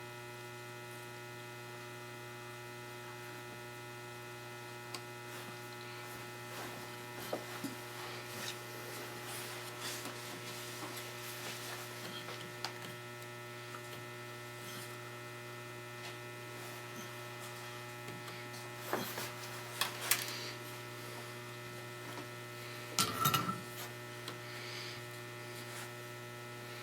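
Steady electrical mains hum, with faint scattered clicks and taps of small handling noises and a few louder knocks about two-thirds of the way through and again near the end.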